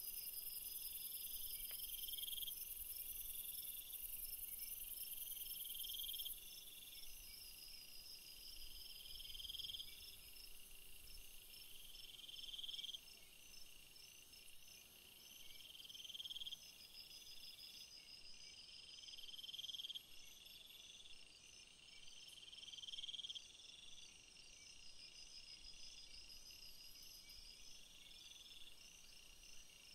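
Faint insects calling: a chirp that swells and cuts off every couple of seconds, over a quicker, higher pulsed trill.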